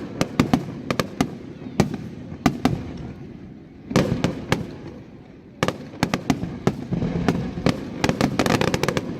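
Aerial fireworks bursting: an irregular run of sharp bangs and crackles over a low rumble, with short lulls and a dense volley in the last few seconds.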